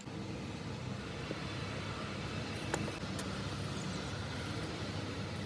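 A vehicle's diesel engine running steadily, with a single sharp click a little under three seconds in.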